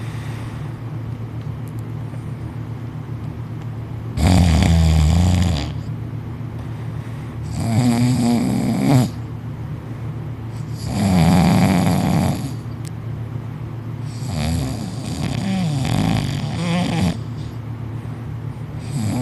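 Loud, heavy snoring: four long snores, one every three to four seconds.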